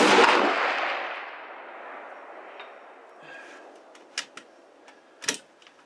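.338 Lapua Magnum rifle firing a single shot: a sharp, very loud crack right at the start, its report echoing and fading away over about three seconds. A couple of sharp clicks follow near the end.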